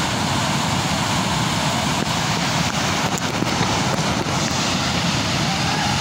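A large waterfall's steady roar of falling water, a constant rushing noise that does not change.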